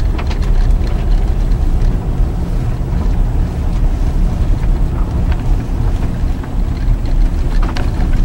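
Vehicle driving along a snowy dirt road: a steady low rumble of tyre and road noise, with a few light ticks and crunches scattered through it.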